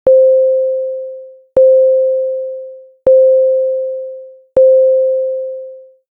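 Computer-generated school lunch-bell signal: four tones on the same pitch (C5), one after another, each starting with a click and fading out over about a second and a half.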